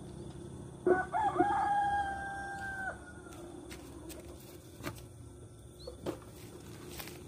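A rooster crowing once, about a second in: a few quick rising notes, then a long held note of about two seconds. A few short clicks follow later.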